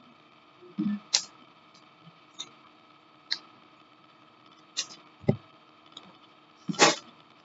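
Irregular short clicks and light knocks, about seven in all, with the loudest near the end, over a faint steady hum.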